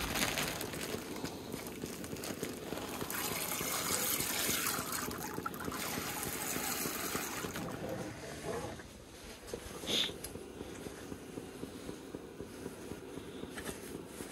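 Camp cooking: a steady hiss under a steaming pot of soup broth on a camp stove, with a plastic bag of frozen vegetables rustling and things handled in a kitchen drawer. A sharp click comes about ten seconds in.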